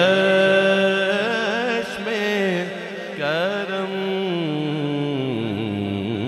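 Male voice singing a naat in long, ornamented held notes with no clear words, the pitch wavering on each note. The singing falls into two phrases with a short break about three seconds in.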